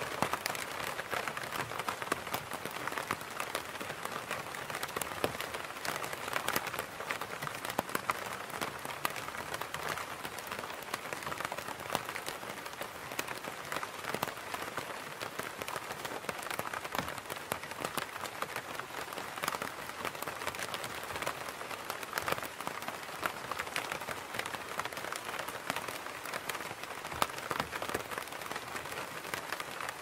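Steady rain pattering on an umbrella canopy: a dense, even stream of fine drop ticks with no let-up.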